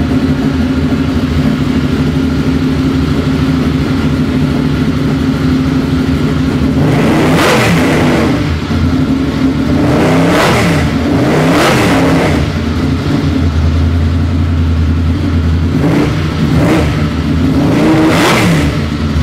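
Martini Mustang's engine idling through its side exhaust, with the throttle blipped five times, each a quick rise and fall in revs, the first about seven seconds in.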